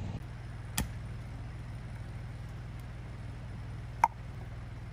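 Two sharp strikes as a maul hits the back of a hatchet driven into a log to split firewood: one about a second in, and a louder one just after four seconds with a metallic ring. Under them an engine-driven generator runs steadily.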